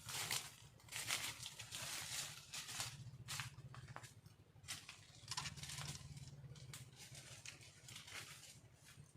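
Irregular rustling and scratching noises, short and uneven, over a low steady hum, with no clear call heard.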